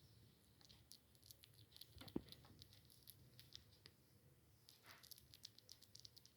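Kittens lapping milk: faint, quick wet clicks coming irregularly, several a second, with one louder knock about two seconds in.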